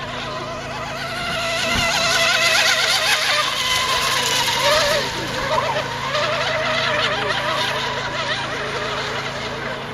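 Radio-controlled hydroplane racing boats' small engines running flat out, a high whine whose pitch wavers constantly as the hulls skip over the water. It swells about a second and a half in as a boat passes close, then eases.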